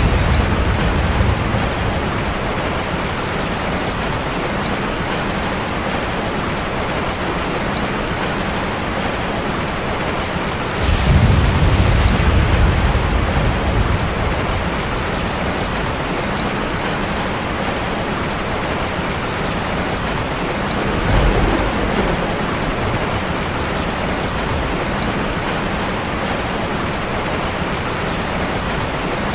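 Steady rain with low rolls of thunder. One rumble dies away in the first second or so, a longer one swells about eleven seconds in and lasts a few seconds, and a shorter one comes about twenty-one seconds in.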